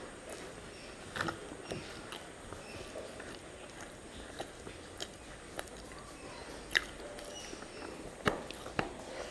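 Close-miked chewing of a mouthful of rice, with the mouth closed, broken by scattered sharp wet mouth clicks and smacks, two of the loudest coming in the second half.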